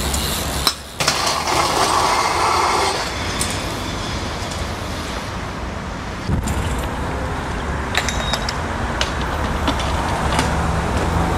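BMX bikes riding on pavement and concrete: tyres rolling with wind rushing over the microphone, and several sharp knocks of the bike striking ledges and the ground.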